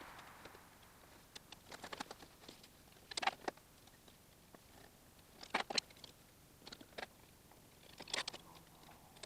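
Faint, scattered clicks and light taps in small clusters, about a second and a half in, near three seconds, around five and a half seconds and near eight seconds: hand work with tools and fasteners, getting nuts started on the threads at the differential.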